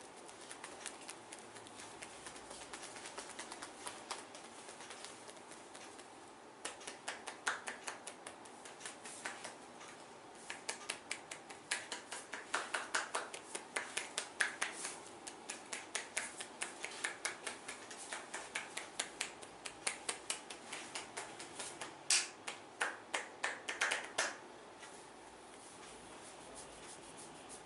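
Hands of a masseur striking quickly during a head massage: a run of short, sharp slaps or snaps, several a second, starting about six seconds in, loudest near the end, and stopping about three seconds before the end.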